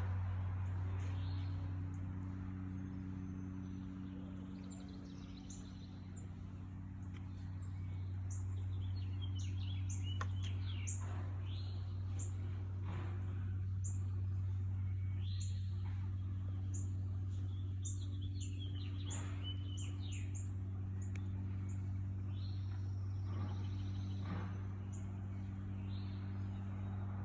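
Garden songbirds chirping and singing, many short high calls scattered throughout, over a steady low hum.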